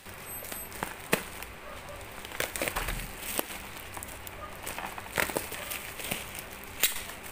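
Plastic bubble-wrap packaging crinkling and crackling as it is picked at and pulled open by hand, in irregular crackles with a few sharper clicks.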